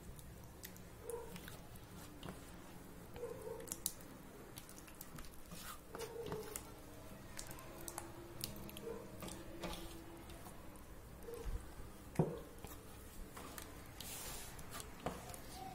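Hands squishing thick yogurt marinade into whole raw chickens in a steel bowl: faint, irregular wet squelches with small clicks, and one sharper click about twelve seconds in.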